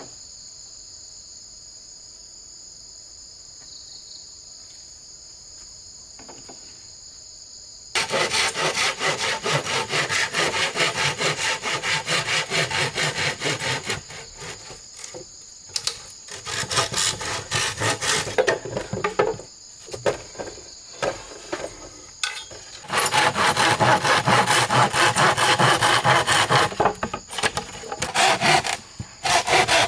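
Hand saw cutting wood in quick back-and-forth strokes, starting about eight seconds in, with stops and restarts in the middle. Before the sawing, and between its strokes, there is a steady high drone of insects.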